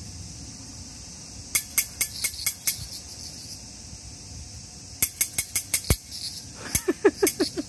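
Cicadas singing steadily in the background, cut across by three quick runs of sharp clicks, six to eight to a run; the last run is mixed with short low chirps.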